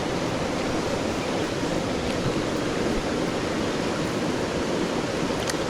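Swift, high stream water rushing steadily, an even wash of noise with no distinct splashes.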